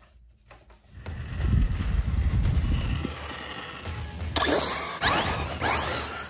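Arrma Fireteam 6S BLX 1/7-scale RC truck running on loose sand. Its drivetrain makes a low, rattling rumble that starts about a second in. From about four seconds in, its brushless motor whines up in pitch in several quick rising sweeps as it accelerates.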